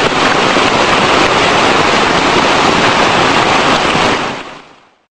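Loud, steady rush of fast-flowing rainwater runoff pouring through a drainage channel, fading out near the end.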